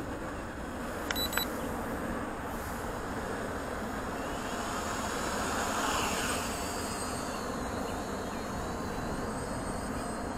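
Two short electronic beeps about a second in, then the JJRC X1 quadcopter's brushless motors spin up with a rising whine and settle into a steady high whine as it lifts off and flies, over a steady background rush.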